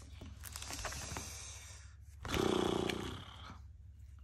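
Photocards and plastic binder sleeves rustling with light clicks as the cards are handled, and a low drawn-out hum lasting about a second near the middle.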